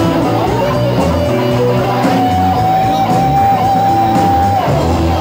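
Live rock band playing: electric guitars, bass guitar and drum kit. About two seconds in, a long high note is held, then slides down near the end.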